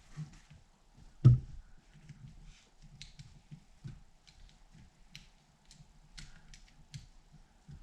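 Faint small plastic clicks and taps from handling a YJ MGC Square-1 puzzle as its black tiles are fitted back on, with one louder knock about a second in.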